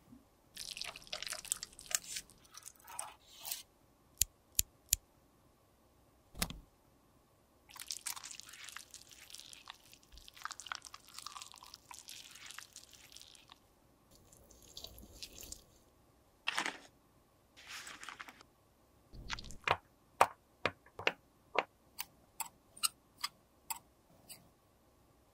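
Close-up handling of makeup products: scratchy scraping and crumbling passes, with scattered sharp clicks and taps. There is a longer scrape in the middle and a run of light taps near the end, about two a second.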